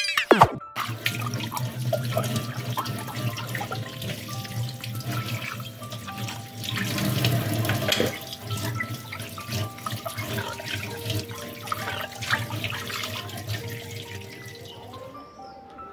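Tap water running into a stainless steel sink and splashing as something is rinsed by hand, with many small splashes and knocks; the water stops near the end. It opens with a quick falling swoosh, and quiet background music plays under it.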